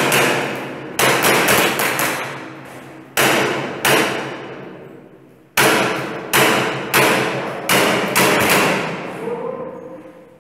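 About a dozen sharp bangs in clusters of two to four, each ringing on and dying away in the echoing concrete corridor.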